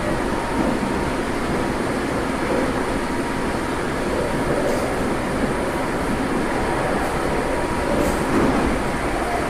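Running sound inside a Tokyo Metro 03 series armature-chopper electric train car: a steady rumble of wheels and traction equipment with a faint steady tone above it, and a few light ticks.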